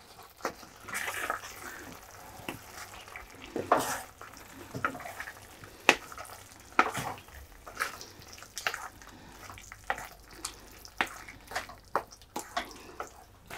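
Wooden spatula stirring chunks of chicken kebab through thick masala gravy in a steel kadai: irregular scrapes and light knocks against the pan, with the gravy cooking on the flame.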